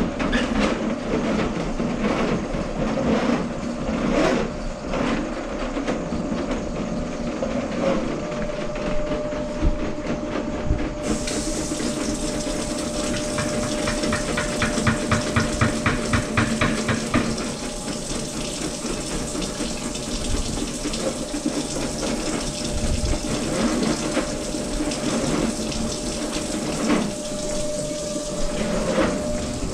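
Electric drum drain-cleaning machine running, its motor spinning the cable as it feeds into the kitchen sink drain line. It gives a steady hum, with a quick, even rattle of the cable for several seconds near the middle.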